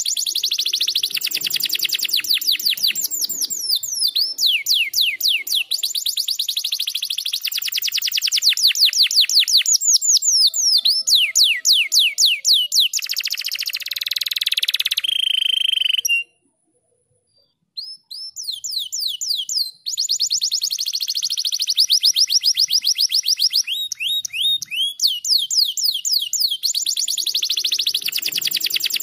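Domestic canary singing long fast trills of rapidly repeated downward-sweeping notes. Partway through comes a buzzy passage and a short held whistle, then a break of about two seconds before the trills start again.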